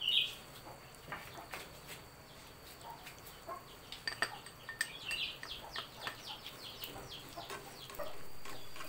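Light clinks and taps of a glass jar and a spatula against a frying pan as ingredients go in and are stirred, with birds chirping close by, including a rapid run of high chirps about five seconds in.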